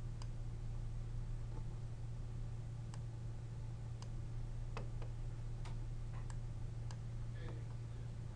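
Computer mouse clicks, about six single clicks most of a second apart, over a steady low hum.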